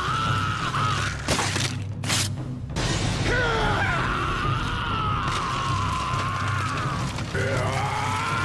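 A man screaming in long, strained cries, the voice holding and wavering for several seconds at a time, over music and a low rumbling effect. Two short whooshing bursts come about one and two seconds in, before the screaming.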